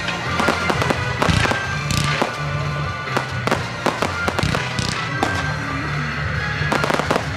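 Aerial fireworks bursting in a string of sharp bangs and crackles over music with a steady, changing bass line.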